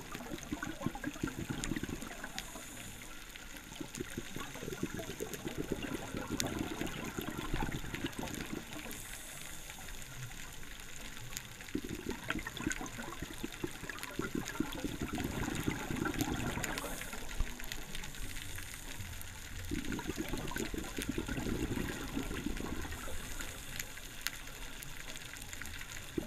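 Scuba diver breathing through a regulator underwater. Each breath is a brief hiss on the inhale, then a few seconds of bubbling and gurgling as the breath is let out, repeating several times.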